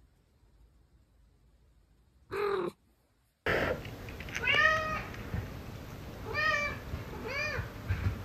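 A domestic cat meows once, briefly, about two seconds in. After a cut, a cat meows three times over room noise, each call rising then falling in pitch, with a few soft low thuds near the end as two cats scuffle on a wooden floor.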